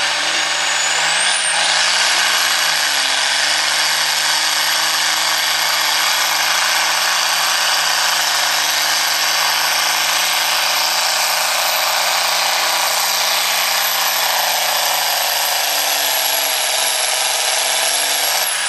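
John Deere farm tractor's diesel engine running flat out under load as it pulls a weight-transfer sled, with a steady high whine that climbs in the first two seconds, holds, and drops near the end.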